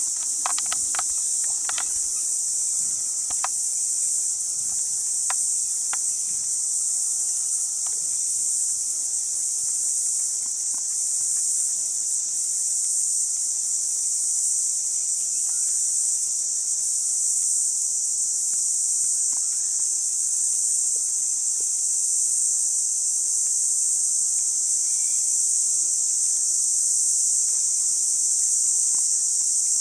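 Steady, high-pitched chorus of insects trilling without a break, with a few faint clicks in the first several seconds.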